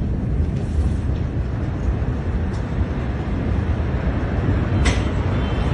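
Low, steady rumble in the aftermath of the huge Beirut port explosion as its smoke cloud rises, with a brief crack about five seconds in.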